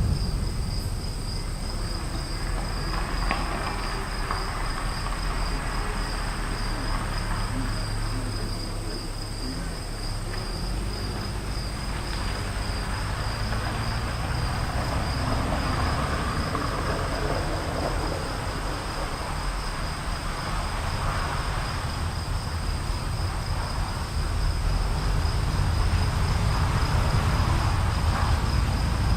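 Afternoon storm ambience: insects trill steadily at a high pitch over a low rumble of the storm, which swells near the end.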